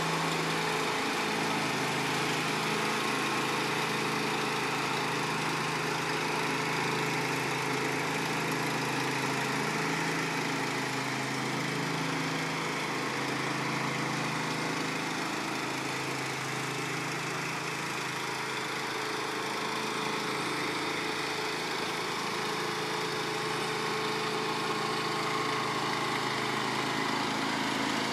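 The 21 HP Briggs & Stratton engine of a riding lawn mower running steadily.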